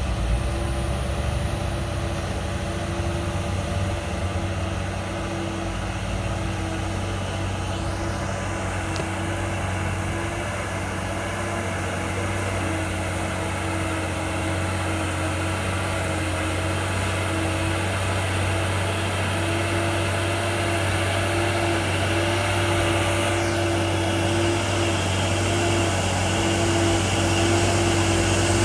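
Heavy vehicle's diesel engine running steadily as a low drone, growing slightly louder toward the end.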